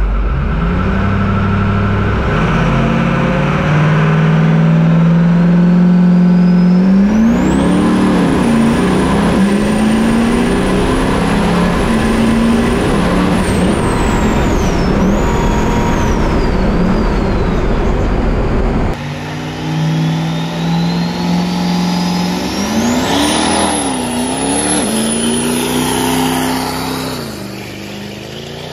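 Duramax diesel drag-race truck running at full throttle down the strip: a loud engine note with a turbo whine that climbs to a high whistle and holds, the engine note dipping briefly a few times. About two-thirds through, the sound changes abruptly to the same kind of run heard from outside, with the same rising whistle, and it fades near the end.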